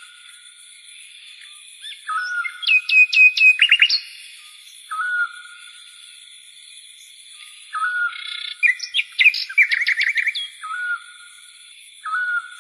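Bird-like chirping: a short whistled note repeated every couple of seconds, with two quick runs of rapid falling chirps, over a faint steady high hum.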